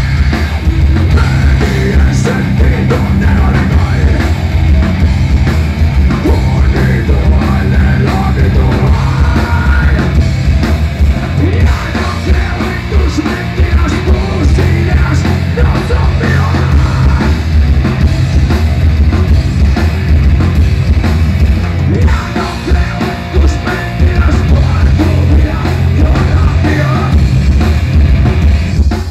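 Live punk-metal band playing loudly: distorted electric guitar, electric bass and a drum kit, heard from the audience in a club.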